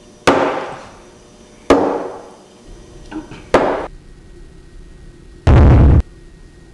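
Cartoon sound effects of a bottle striking flies: three sharp hits, each ringing off, spaced about a second and a half apart, then a loud half-second burst of noise about two seconds after the last hit.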